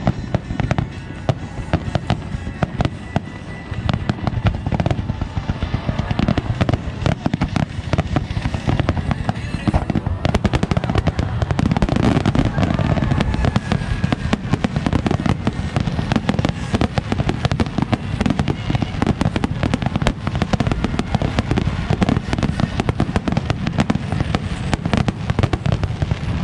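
Fireworks going off in a rapid, unbroken barrage: volleys of launches and bursts with dense bangs and crackling. It grows louder and denser about ten seconds in.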